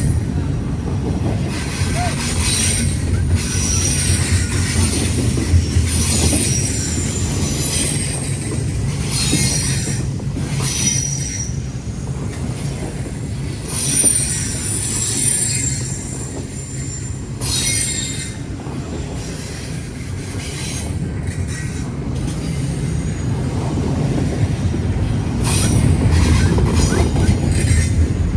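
A freight train rolling past with a steady rumble of steel wheels on rail. High-pitched wheel squeal comes and goes throughout.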